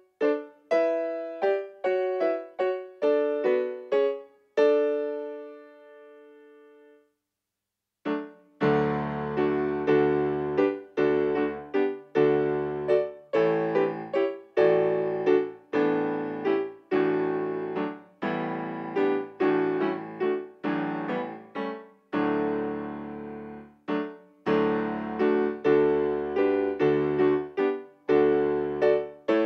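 Yamaha digital piano playing a hymn. A single-line melody ends on a held note that fades away, there is a pause of about a second, and then full chords with a bass line come in about eight seconds in.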